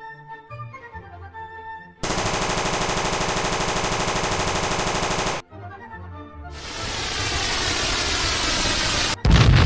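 Soft music, then about two seconds in a long burst of rapid automatic gunfire from an AK-style assault rifle lasting about three seconds. After that a rocket's whoosh grows louder and cuts off into a loud explosion near the end.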